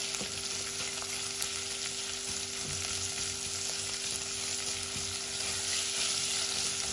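Minced meat with chopped garlic and onion sizzling in hot oil in a nonstick pot, stirred with a silicone spatula; an even frying hiss throughout, over a faint steady hum.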